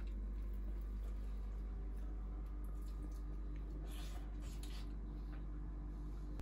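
Soft wet squishing as a roast chicken drumstick is pulled from the plate, then a bite into its crisp skin about four seconds in, over a steady low hum.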